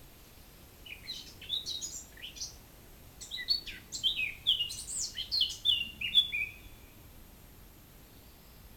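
A songbird singing a quick, varied run of chirps and short whistled notes, many of them sliding down in pitch. It starts about a second in and stops about two seconds before the end.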